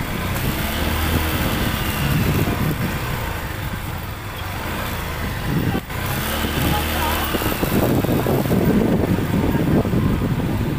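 Motorcycle engine running at low speed through a busy street market, with the chatter of shoppers and vendors around it. The sound drops out for an instant a little past halfway.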